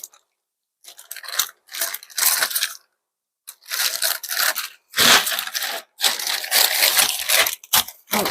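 Plastic packaging crinkling and rustling in bursts as wrapped silicone molds are pulled out of a parcel, busier and louder in the second half.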